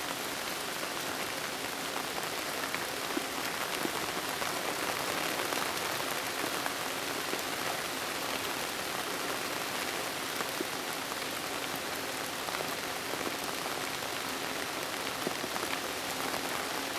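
Steady rain falling: an even hiss with many small scattered drop ticks, unchanging throughout.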